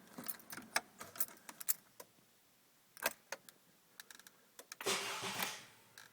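Car keys jangling on the ring, with sharp clicks as the ignition key of a 2010 Honda Accord is turned, in an attempt to start a car that intermittently fails to start. A rushing noise lasting about a second comes near the end.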